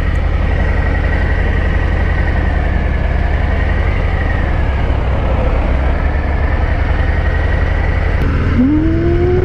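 Harley-Davidson FXDR 114's Milwaukee-Eight 114 V-twin running as the motorcycle rides along, mixed with steady wind noise. A short rising tone comes in near the end.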